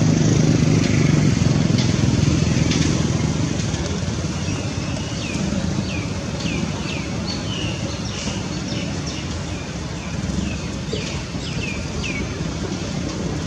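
A motor vehicle engine running steadily, loudest in the first few seconds and then easing off. From about five seconds in, short, high, falling chirps repeat roughly twice a second.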